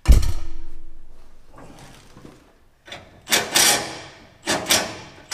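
A loud metal clunk that dies away over about a second and a half, then two rounds of short scraping and clattering of tools and parts, about three seconds and four and a half seconds in.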